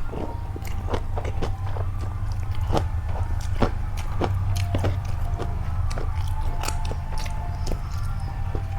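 A person biting and chewing food close to the microphone, heard as irregular sharp clicks and smacks, over a steady low hum.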